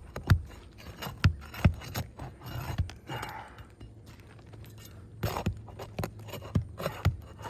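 Old asphalt roof shingles being worked loose by hand and tool: irregular sharp clicks and knocks with scraping between them, and a longer scrape about three seconds in.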